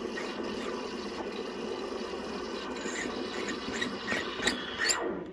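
Saeco Nina Plus espresso machine's steam wand frothing milk in a metal pitcher: a steady hiss, with short squeaky chirps and two sharp clicks in the last couple of seconds, then the steam cuts off suddenly about five seconds in.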